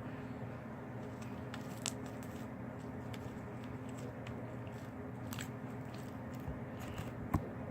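Slime being squished and worked in the hands, giving scattered small sticky clicks and crackles over a steady low room hum.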